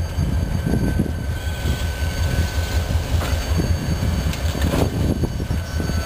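EMD SD45 diesel locomotive with its 20-cylinder two-stroke engine running as it pulls a train slowly along the track. A steady low rumble carries a thin steady high whine, with a couple of sharp clanks about three and five seconds in.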